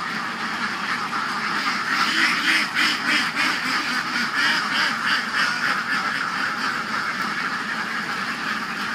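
A large flock of domestic laying ducks quacking, a dense chorus of many overlapping calls, a little louder in the middle.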